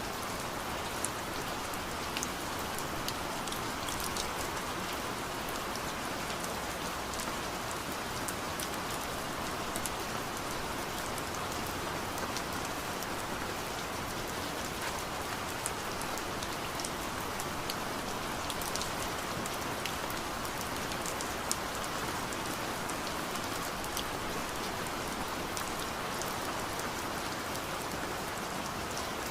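Steady rain falling, an even hiss with the patter of individual drops.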